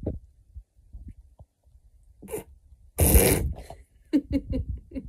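A person bursting into stifled laughter: a loud rush of breath about three seconds in, then a run of short, quick giggling pulses.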